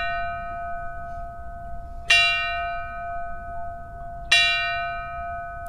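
A bell struck twice, about two seconds apart. Each stroke rings on and fades slowly, over the fading ring of a stroke just before.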